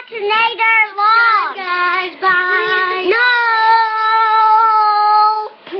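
A child singing loudly in a high voice, holding long drawn-out notes; the last note is held for about two seconds and breaks off shortly before the end.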